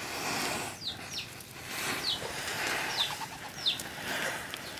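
Heaps of matchsticks burning under a fish on a wire grill, with a rushing hiss as the match heads flare that swells twice. Over it come about six short falling peeps from birds.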